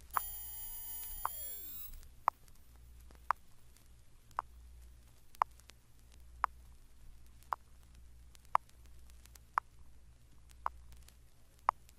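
Test-tone frequency sweep from a vinyl LP: a very high tone climbing past the top of hearing for about the first two seconds. After that only faint record surface noise, with a sharp click about once a second.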